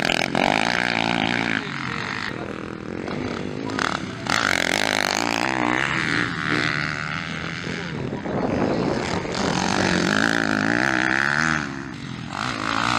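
Motocross dirt bike engines revving hard on a dirt track, the pitch climbing and dropping through the gears in several loud runs as bikes pass.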